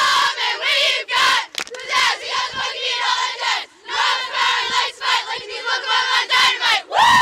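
A high school girls' soccer team shouting a team chant together in a huddle, many young female voices in unison, one short shouted phrase after another.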